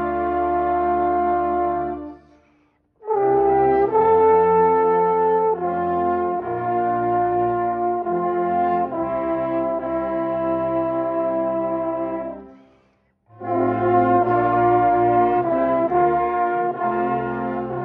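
A wind band playing long held chords, with the brass to the fore. The band cuts off twice, about two seconds in and again about twelve seconds in, and comes back in after a short silence each time, as in a rehearsal warm-up.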